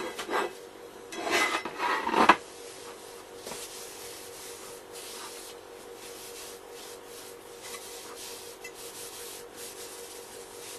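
Paper towel rubbing vegetable oil over a cast-iron camp Dutch oven to season it. The rubbing is loudest in the first two seconds or so, then goes on as softer, scattered wiping strokes.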